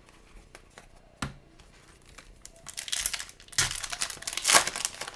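A foil wrapper of a 2022-23 Upper Deck Series 2 hockey card retail pack being torn open and crinkled, with a sharp click about a second in and the loudest crackling in the last two seconds.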